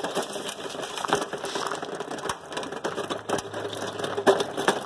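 Magnetic pickup sweeper being pushed over gravel and dry leaves: a steady crunching from its wheels and footsteps, with many scattered sharp clicks as nails and bits of metal snap up onto the magnet.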